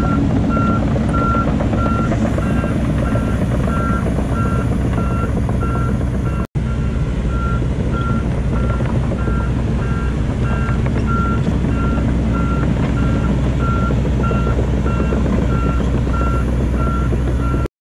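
Volvo EC210D crawler excavator's diesel engine running steadily while its travel alarm beeps at an even pace. The sound drops out briefly about six and a half seconds in.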